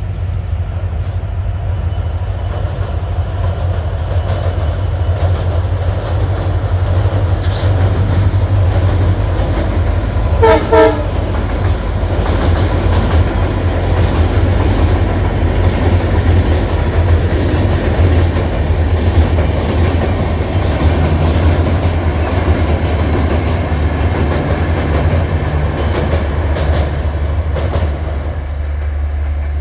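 Indian Railways diesel-electric locomotive hauling a passenger train across a steel truss bridge: a steady deep engine rumble with wheel clatter over the rails, and two short horn blasts about ten seconds in.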